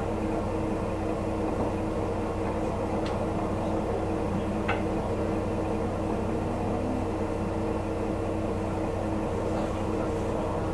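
Diesel railcar engine idling while the train stands still: a steady hum with several held tones over a low, even throb. Two faint clicks come a few seconds in.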